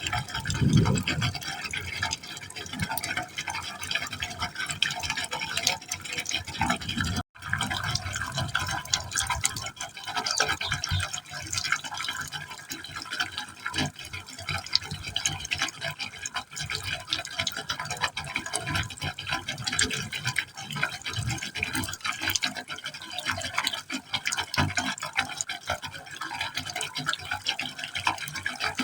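Water falling into a pipe opening, a continuous splashing with fine irregular spatters, fuller and lower in the first seven seconds. It cuts out for a split second about seven seconds in.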